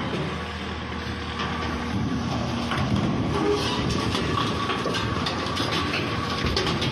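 Backhoe loader's diesel engine running under load while its arm bends and crushes corrugated metal sheeting, with metallic clattering and scraping that comes thickest in the middle of the clip.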